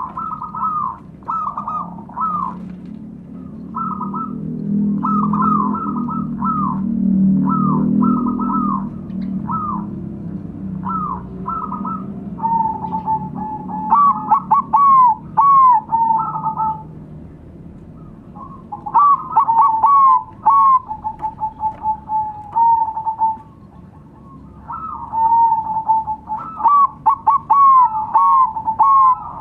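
Zebra doves (perkutut) singing together: fast trains of short rolling coo notes, then, from about halfway, repeated song bouts that run into a long held note.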